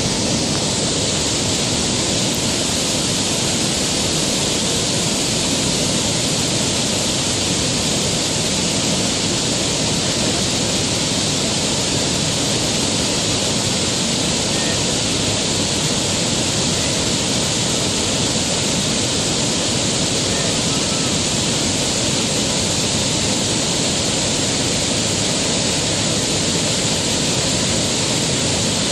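Rushing river water: a loud, steady hiss of white water that stays even throughout.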